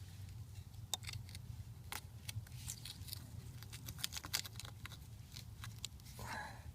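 Steel mudding knife scraping and ticking against wet mortar and brick as mortar is pushed back into a joint: a scatter of small sharp scrapes and clicks over a faint low hum.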